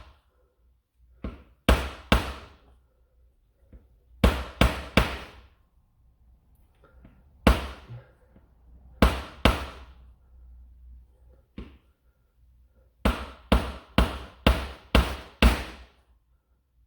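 Sharp knocks in quick clusters of two or three, then a run of about seven near the end, as a tight 3D-printed kit part is knocked into place on a plastic toy blaster.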